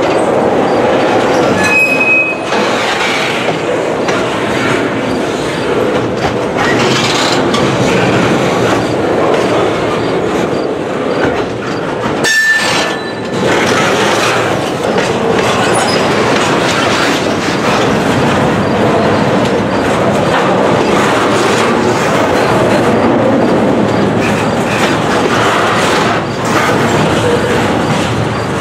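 Double-stack intermodal well cars rolling past, with a steady rumble and clatter of steel wheels on the rails. There are two brief high wheel squeals, one about 2 seconds in and one near the middle.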